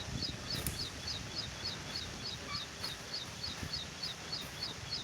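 A bird's short, high chirp repeated steadily about three to four times a second, over a low rumbling noise.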